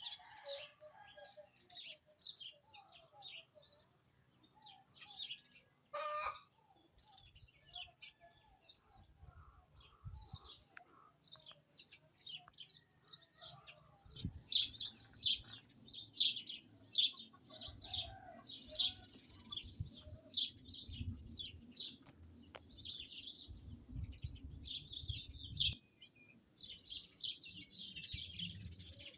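Small birds chirping and twittering throughout in quick, high calls. A single sharp click about six seconds in. From about halfway a low rumble of wind comes in, dropping away shortly before the end.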